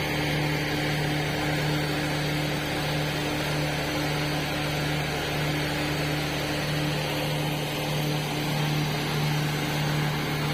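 Borewell drilling rig running steadily, a constant low engine hum with no change in pitch.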